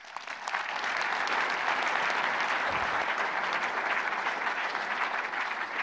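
Audience applauding, dense clapping that starts right after the talk ends, builds within the first half second and then holds steady.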